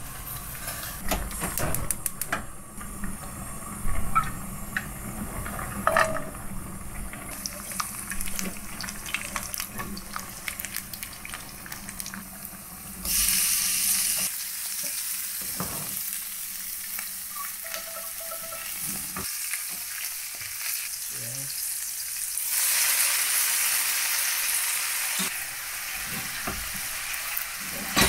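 Food sizzling in oil in a frying pan, with clinks and scrapes of a utensil against the pan. The sizzling starts suddenly about halfway through and grows louder again near the end.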